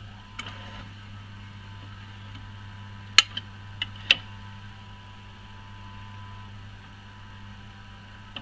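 Philips radiogram automatic record changer started with its push-buttons: a steady low hum runs under sharp mechanical clicks, one about half a second in and a cluster around three to four seconds in, as the changer mechanism cycles and swings the tone arm over the record.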